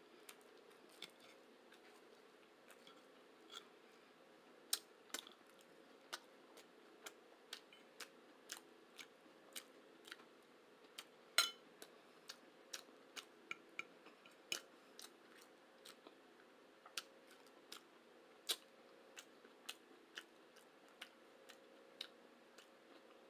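Close-up eating sounds: chewing with a string of sharp, irregular mouth clicks and smacks, about one or two a second, the loudest about halfway through.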